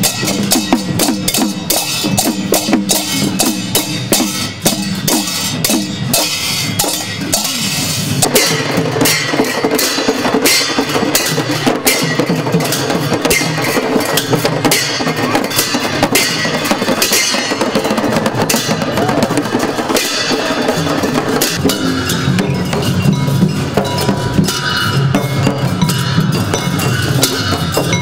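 Newar procession band: dhimay barrel drums beaten in a steady rhythm, with brass cymbals clashing.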